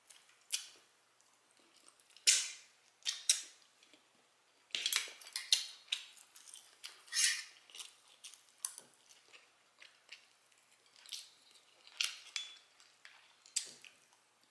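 Open-mouth chewing of barbecue ribs: irregular wet smacks and sharp mouth clicks, a few every couple of seconds, with quiet gaps between.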